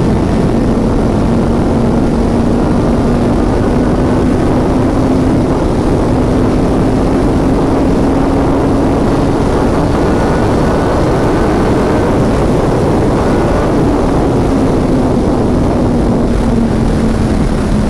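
Motorcycle cruising at steady speed: loud wind noise on the microphone over the engine's hum, its pitch climbing slightly and then easing off near the end.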